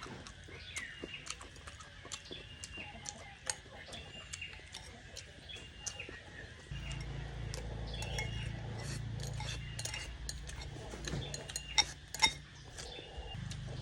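Eating utensils clicking and clinking against a bowl during a meal, with sharp clicks throughout and the two loudest about twelve seconds in. Birds chirp repeatedly in the background.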